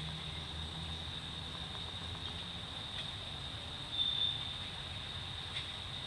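Outdoor ambience dominated by a steady high insect drone, with a brief louder chirp about four seconds in and a low hum that fades out in the first second.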